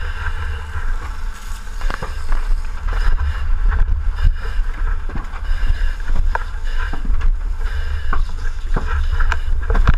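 Muffled low rumble with scattered knocks and bumps: handling noise of a firefighter's helmet-mounted action camera as he moves.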